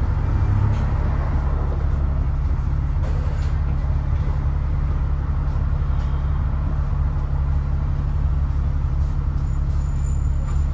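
London double-decker bus running, heard from inside on the upper deck: a steady low engine-and-road rumble with a few faint rattles.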